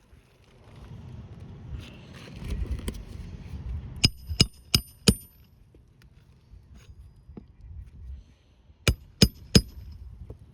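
Steel hammer striking nails while a replacement roof shingle is fastened. There are four quick ringing blows about four seconds in and three more a few seconds later, with some rustling and scuffing before them.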